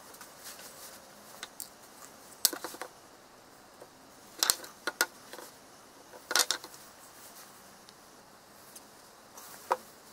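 Hand-handling noise from small wooden parts and a wooden box: a scattering of sharp clicks and knocks, the loudest about two and a half seconds in.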